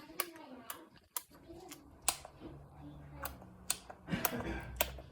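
About ten sharp clicks or taps at irregular intervals, over a quiet room.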